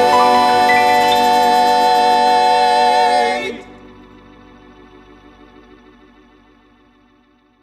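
Final held chord of a four-part gospel male quartet with organ. The voices cut off together about three and a half seconds in, and the organ chord rings on quietly with a wavering pulse, fading out to silence near the end.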